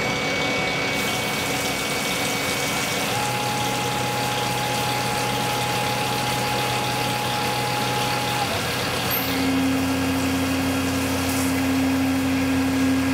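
CNC mill spindle driving a 1/8-inch carbide end mill as it slots 304 stainless steel at 200% axial depth, under a flood coolant spray that comes on about a second in. It is a steady machine hum and hiss, with held tones that shift in pitch a few times.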